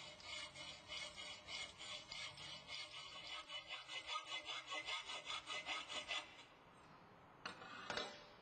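Hacksaw cutting across thin-walled steel EMT conduit clamped in a bench vise, in quick even strokes about three a second, stopping about six seconds in. A brief cluster of sharp knocks follows near the end.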